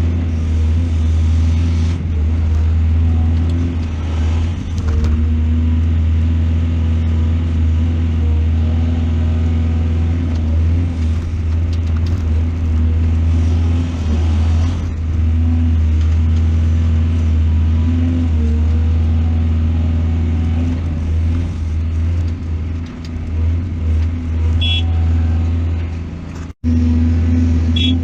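Heavy diesel engine of an excavator running steadily with a strong low hum, its level dipping now and then. It drops out for an instant near the end.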